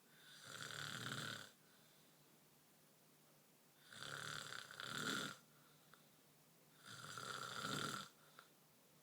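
A sleeping person snoring: three long, rasping snore breaths about three seconds apart, with quiet between them.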